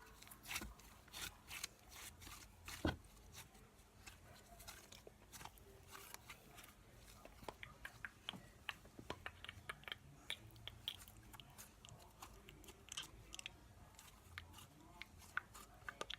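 Cloud cream slime being stretched and folded by hand, giving faint sticky clicks and crackles, with one louder pop about three seconds in.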